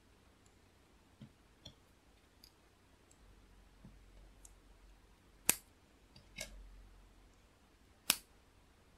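Small LEGO plastic parts clicking as they are handled and pressed together by hand: two sharp snaps, about five and a half and eight seconds in, with lighter clicks and taps between.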